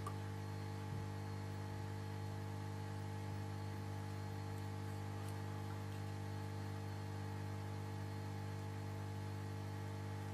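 Steady electrical mains hum, an even drone with a stack of overtones that does not change.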